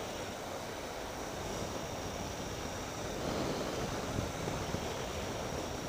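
Wind rushing over the microphone while riding a Triumph Tiger 800 XCx on a dirt road, with the bike's three-cylinder engine running steadily underneath.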